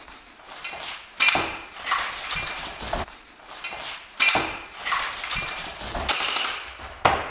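Clatter and knocks of an AK-pattern rifle being seized and wrenched out of its holder's grip during a disarm, in several sharp bursts a second or so apart.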